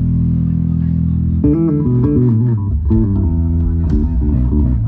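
Electric bass guitar being soundchecked through an amplifier. A low note rings and is held, then about a second and a half in the bassist plays a quick run of plucked notes.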